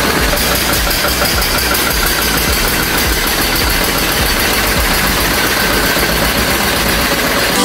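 Small electric motor of a miniature toy fruit juicer running steadily with a fast even ticking as it crushes grapes.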